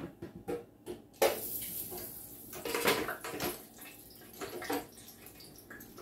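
Electric deep fryer: a few clicks as the basket is lowered, then about a second in the hot oil breaks into a loud bubbling sizzle around the hash brown, easing off gradually with a few flare-ups.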